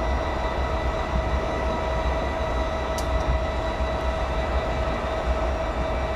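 Norfolk Southern EMD SD60I diesel locomotive, its two-stroke V16 engine running with a steady low rumble and a steady high whine over it. A short click comes about three seconds in.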